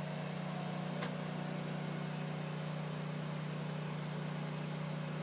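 Engine of a bentonite grout pump running steadily with a low, even hum, as grout is mixed and pumped to backfill a geothermal loop well. A single short click about a second in.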